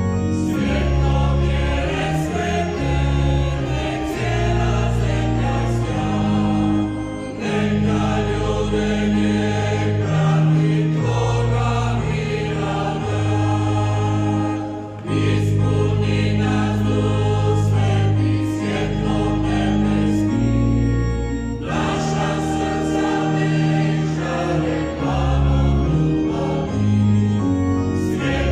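Choir singing, with held chords that change every second or two.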